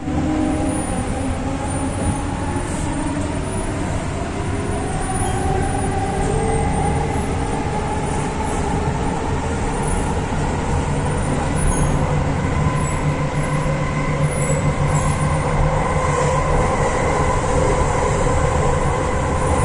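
Electric metro train running on an elevated track, heard from inside the car: a steady rolling rumble with a motor whine that rises in pitch as the train gathers speed.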